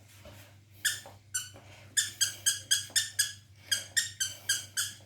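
Squeaky plush toy squeezed over and over in a puppy's jaws. It gives two single squeaks, then a fast run of short high squeaks at about four a second.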